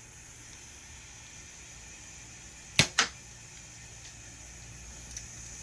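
Mini Nerf foam-dart blaster firing: two sharp clacks about a fifth of a second apart, nearly three seconds in, over a steady faint hiss.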